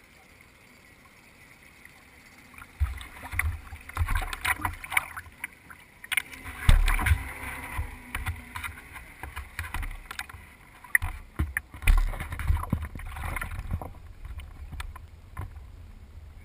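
Hull of a radio-control nitro boat, its engine not running, sloshing in the water and then knocking and thudding many times, irregularly, as it is grabbed at the dock and lifted out.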